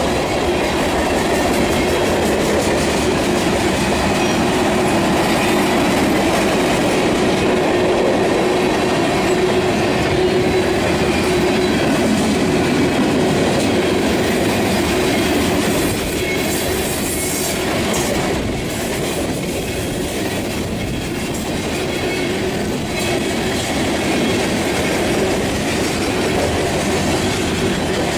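Train cars rolling past close by: a steady, loud noise of steel wheels on the rails, with a slight dip in level about two-thirds of the way through.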